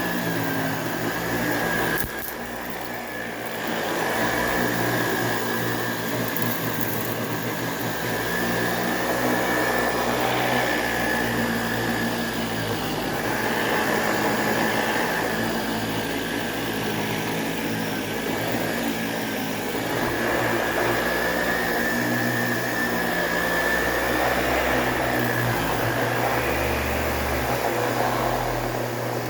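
Sebo 360 vacuum cleaner running on carpet: a steady motor sound with a high whine, its level rising and falling every few seconds as it works. It dips briefly about two seconds in.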